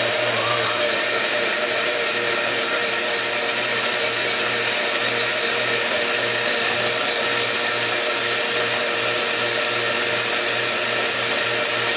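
Electric blender running steadily, emulsifying soy milk and sunflower oil into vegan mayonnaise.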